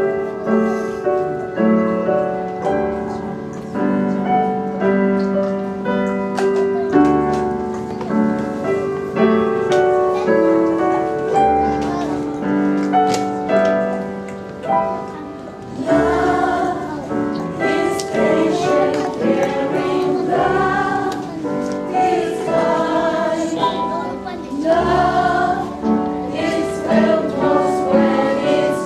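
Live gospel song: a keyboard plays sustained chords as an introduction, then a choir of voices comes in singing over it about halfway through.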